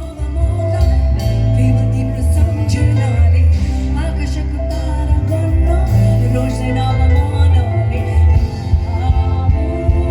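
Live band music with a heavy bass line and drums, a melody line running over them.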